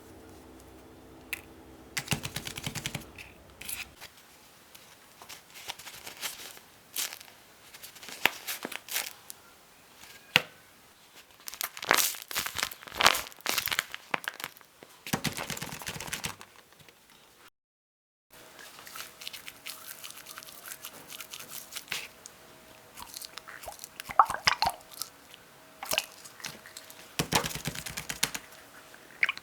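Small fidget toys and their packaging being handled, making irregular crunching, crinkling and clicking sounds, with a brief dropout just past the middle.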